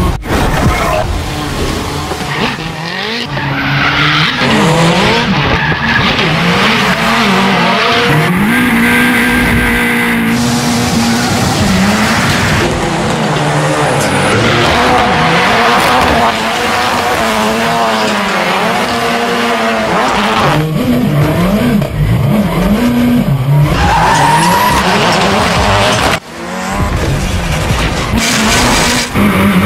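Ford Fiesta rally car with a turbocharged four-cylinder engine, drifting hard: the revs climb and fall again and again as the throttle is worked, with tyres squealing and skidding on concrete. The sound drops out abruptly a few times.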